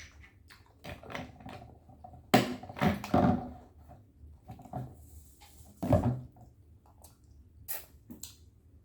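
Close-up eating sounds: chewing, mouth smacks and small clicks at an uneven pace, the loudest a little over two seconds in and about six seconds in.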